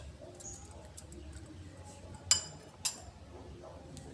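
Two sharp clinks of kitchenware, about half a second apart, over a faint low hum.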